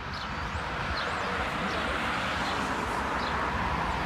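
Road traffic with an approaching Ikarus 250.59 bus's diesel engine, a steady engine and tyre noise growing slowly louder, with small birds chirping over it.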